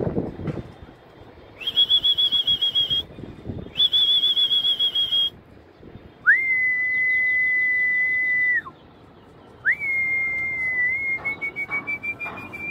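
Four long, loud whistles. The first two are higher and warbling; the last two are lower and held steady, the final one rising slightly near the end.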